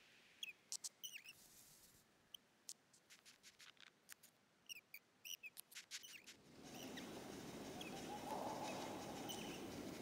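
Faint, sparse tiny squeaks and ticks, the sound effects for a small cartoon bird. About six and a half seconds in, a soft, steady hiss rises.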